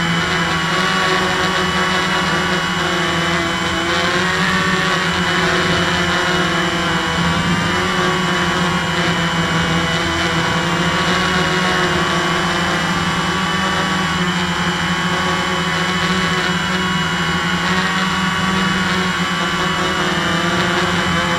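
RC Eye One Xtreme quadcopter's motors and propellers whirring steadily in flight, a loud, even whir over a strong low hum, heard up close from the action camera mounted on the quad.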